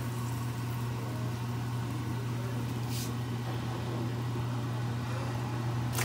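Steady low mechanical hum, with one brief click about halfway through.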